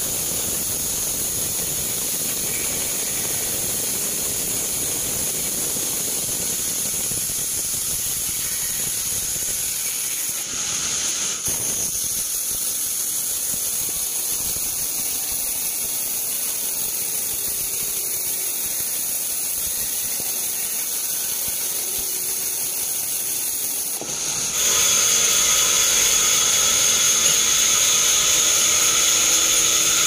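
Band sawmill running, its blade cutting teak with a steady high-pitched squeal. The sound changes abruptly about 11 seconds in and turns louder about 24 seconds in.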